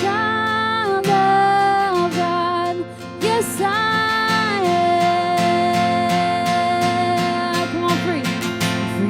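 Worship band playing a slow congregational song, with acoustic guitar strumming under a singer's long held, wordless notes.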